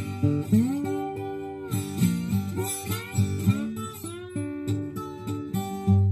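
Vintage Maton CW80D twelve-string acoustic guitar in open G tuning, fingerpicked and played with a bottleneck slide in a Delta blues style. Several slid notes glide up into pitch, the first about half a second in.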